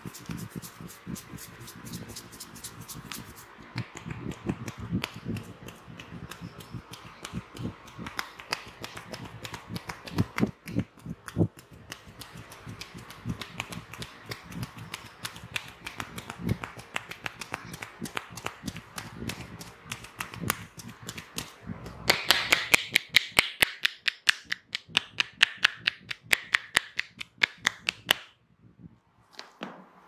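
Hair cracking during a scalp massage: tufts of hair are gripped and tugged, giving a string of sharp snapping crackles, with fingers rubbing through the hair. The snaps come thickest and loudest about two-thirds of the way in, run for some six seconds, then stop.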